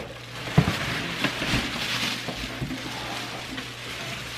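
Plastic bag around a new Instant Pot rustling and crinkling while the cardboard box is pulled up and off it, with a couple of light knocks early on.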